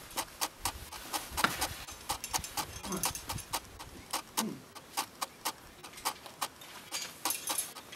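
A steady train of sharp clicks, about three a second. Over it come two short strained grunts from the climber, about three and four and a half seconds in.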